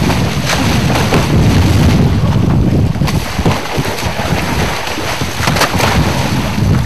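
Wind buffeting the microphone over churning, splashing water as a freshly speared halibut thrashes at the surface against the boat's hull. A few sharp slaps of water stand out, the clearest about five and a half seconds in.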